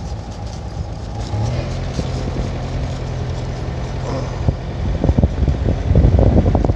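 Car driving slowly, heard from inside the cabin: a steady engine hum, then from about five seconds in a rough, uneven rumble that grows louder as the car moves along.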